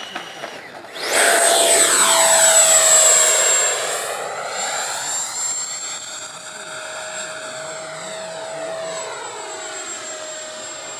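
An FMS F-16 RC jet's 80 mm electric ducted fan whines at high power as the model passes close. The sound swells suddenly about a second in, with a swooshing, phasing sweep, then eases off while the steady high whine carries on.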